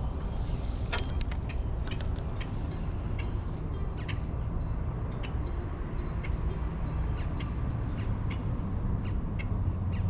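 Spinning rod and reel being fished: a brief hiss near the start, then scattered light clicks and ticks as the lure is retrieved, over a steady low rumble.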